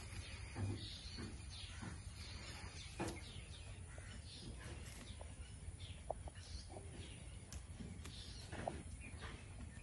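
Birds chirping and poultry calling faintly over a low steady rumble, with scattered soft clicks and rustles from goats pulling at and chewing cut green fodder.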